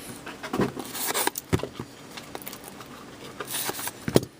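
Trading cards and card packaging being handled on a table: scattered light taps and clicks with soft rustling.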